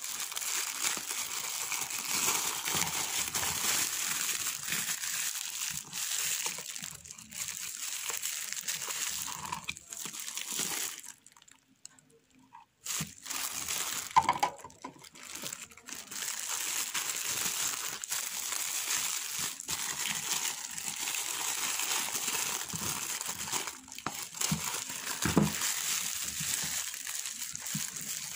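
Clear plastic wrapping crinkling as it is handled and unwrapped, with a pause of about two seconds near the middle.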